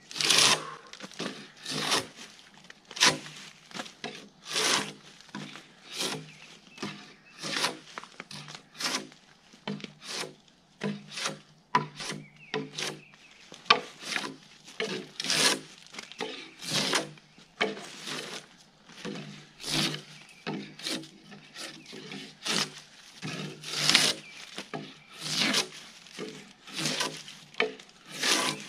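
Gränsfors Bruks drawknife being pulled along a log to peel off its bark: short scraping strokes of the blade on wood, about one a second, in a steady working rhythm.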